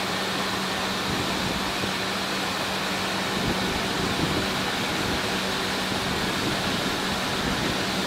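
Stargate S6 automatic rollover car wash running as it washes a car: a steady machine hum under an even rushing of its brushes and water.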